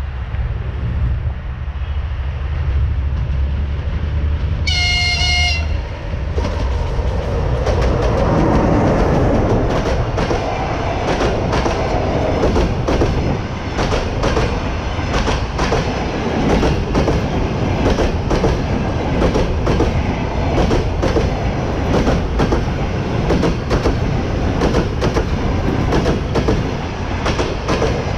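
EP20 electric locomotive approaching with a rising rumble and giving one horn blast about a second long, around five seconds in. The express train then passes close by: its passenger coaches' wheels keep up a steady clatter over the rail joints above a continuous rolling rumble.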